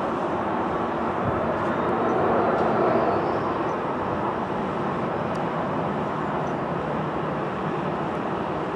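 Boeing 737-800's CFM56-7B turbofan engines running at taxi power: a steady jet rumble and hiss that swells a little about two to three seconds in.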